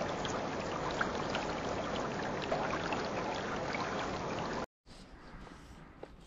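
Steady rushing, stream-like noise with scattered small crackles under the title sequence, which cuts off abruptly after about five seconds. A much quieter open-air ambience with a few faint ticks follows.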